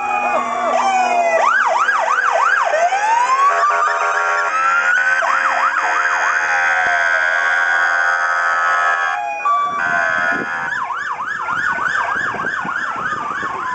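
Several emergency vehicle sirens sounding at once, overlapping: fast up-and-down yelp sweeps alternating with slow rising-and-falling wails.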